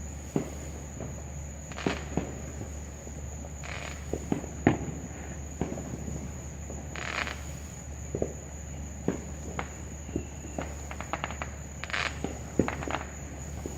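Night insects keep up a steady high-pitched trill while distant fireworks go off irregularly with sharp pops and bangs. A quick run of crackling reports comes a little past the middle.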